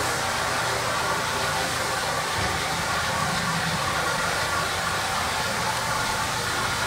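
Rotary floor buffer running with a steady, even whir as its white pad spins over hardwood freshly coated with hard wax oil, buffing the excess oil off.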